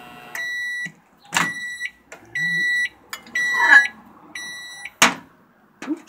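Countertop microwave oven finishing its cycle: its running hum stops about a third of a second in, and it gives five high beeps about a second apart to signal it is done. Two sharp clacks, about a second and a half in and near the end, come as the door is opened and the mug taken out.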